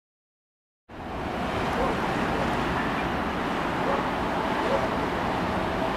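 Steady rushing wind and sea noise on an outdoor microphone, starting abruptly about a second in after silence.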